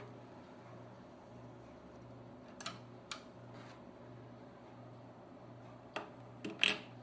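Technics SL-1600MK2 automatic turntable switched on: a faint, low pulsing hum with a few small mechanical clicks, twice near the middle and a short cluster near the end. The automatic tonearm does not cue, a sign that the worn rubber drive belt of the cueing mechanism has failed.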